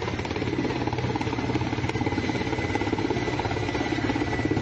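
Helicopter running steadily with a fast, even rotor flutter and a thin, steady high whine.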